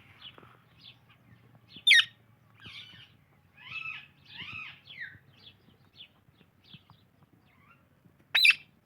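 Indian ringneck and Alexandrine parakeets calling: a run of short chirps, a few longer squawks in the middle, and two much louder screeches, one about two seconds in and one near the end.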